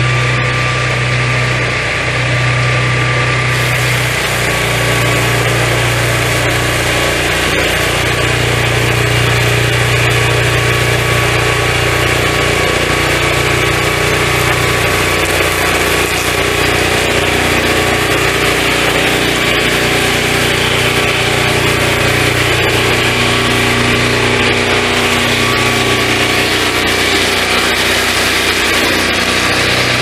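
Petrol engine of a swingblade sawmill running steadily at high speed, spinning the circular saw blade as the saw head travels along the rails.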